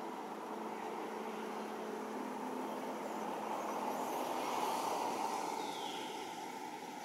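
Steady outdoor background noise with a faint low hum, swelling a little in the middle, and a faint high falling call near the end.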